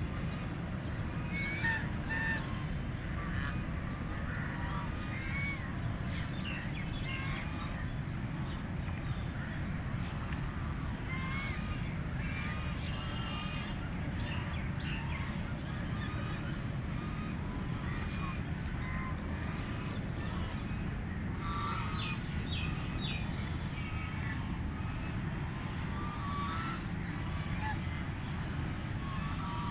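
Ducklings making short, scattered calls while feeding on grass, over a steady low background rumble.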